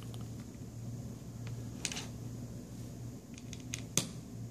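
Small clicks and taps from fingers handling an LG G3's plastic midframe and screws during reassembly, with a sharp click about two seconds in and the loudest one near the end. A steady low hum runs underneath.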